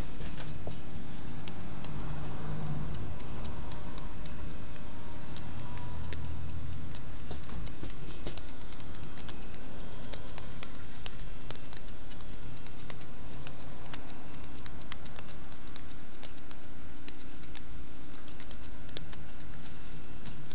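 Barber's scissors snipping hair over a comb: an irregular run of quick, short clicks, thickest midway through.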